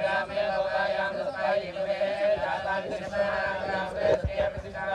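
Vedic priests chanting Sanskrit mantras together in a steady group recitation during a fire ritual. There is a brief thump about four seconds in.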